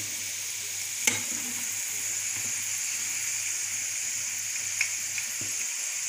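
Diced potatoes frying in hot olive oil in a frying pan, a steady sizzle, while they are scooped out with a skimmer. A sharp click about a second in and a few fainter ticks near the end.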